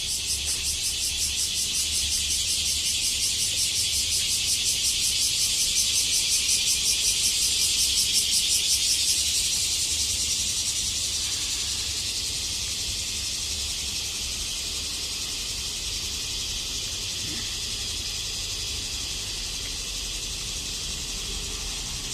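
Cicadas singing: a dense, high, rapidly pulsing buzz that swells to its loudest about eight seconds in, then eases into a steadier, slightly softer drone.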